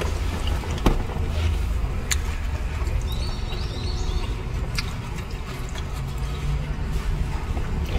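A steady low hum inside a parked car, likely the engine or air conditioning running, with a few sharp clicks about one, two and five seconds in.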